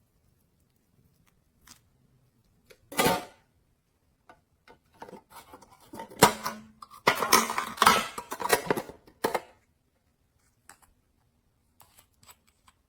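Slime being handled and mixed: a short squelch about three seconds in, then a few seconds of dense sticky clicks and crackles as it is pressed and stirred.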